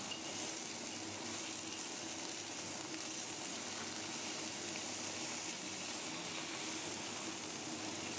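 Vegetables frying in a pan on the stove, a steady sizzle: youmaicai lettuce being stir-fried with canned black-bean dace.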